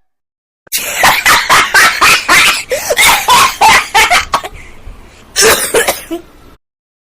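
A fit of very loud, harsh coughing: a fast string of coughs about three a second, tailing off, then one more loud cough near the end before it stops suddenly.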